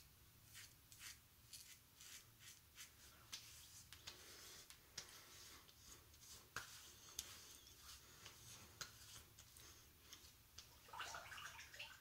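Faint, irregular scratching of a razor scraping through stubble on the neck, followed by a hand rubbing over the freshly shaved skin, with a short rustle near the end.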